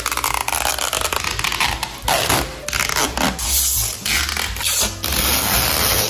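Plastic protective film being peeled off a new stainless-steel refrigerator, crackling and rustling in irregular bursts.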